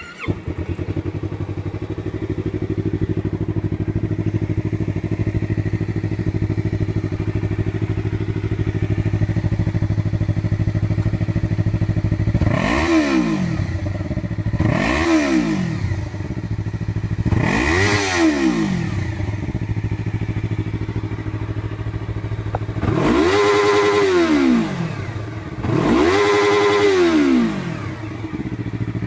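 Motorcycle engine breathing through an aftermarket exhaust, starting up and settling into a steady idle, then blipped three times and revved twice more with the revs held for a second or so before dropping back to idle.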